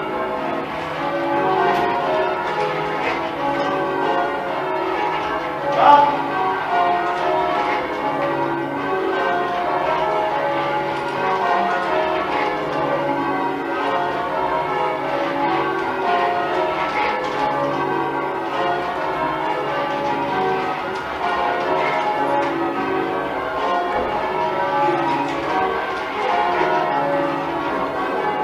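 Change ringing on a ring of ten church bells: a continuous, even run of overlapping bell strokes, with one sharp, louder knock about six seconds in.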